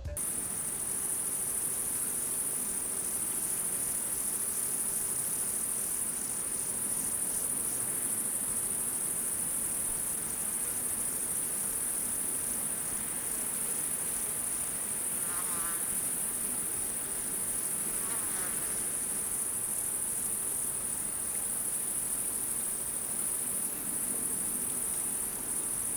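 Crickets chirping in a continuous chorus, a steady high-pitched trill that holds at an even level.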